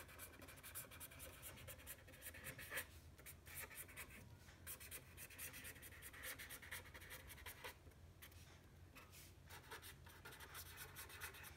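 Felt-tip pen writing on paper: faint scratching of the pen strokes in short irregular runs, with brief pauses between letters.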